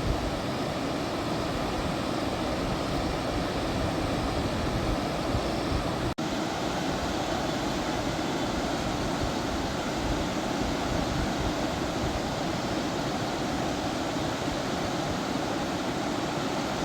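Steady rushing of a stream swollen and overflowing after heavy rain, with a brief break about six seconds in.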